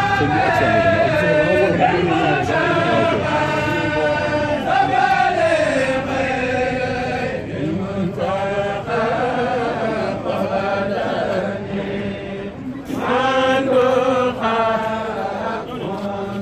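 Group of men chanting an Arabic devotional poem in unison, a Mouride khassida, with a rising and falling melody. It pauses briefly about twelve seconds in, then resumes.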